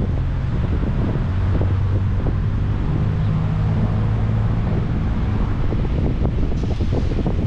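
Car driving along: steady low road and engine rumble with wind buffeting the microphone, a low hum swelling in the middle, and scattered small knocks.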